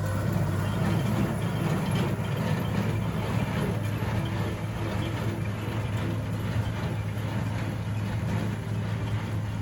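Farm tractor engine running steadily at a low drone, with a rattling mechanical clatter over it.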